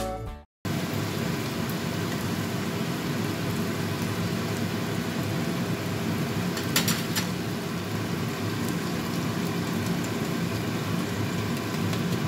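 Chicken pieces sizzling steadily in a stainless steel frying pan, with a brief clink about seven seconds in. Background music fades out in the first half second.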